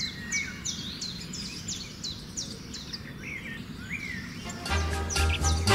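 A bird calling over and over in short, high chirps that fall in pitch, about three a second, with a couple of lower sliding notes midway. Background music with a steady bass beat comes in near the end.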